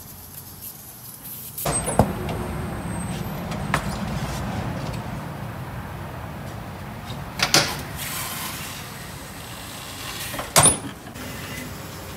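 Pneumatic tire changer at work, breaking the bead of a tire on a three-piece wheel: a sharp clack about two seconds in, then a steady rushing noise broken by loud bursts and clanks, the strongest about seven and a half and ten and a half seconds in.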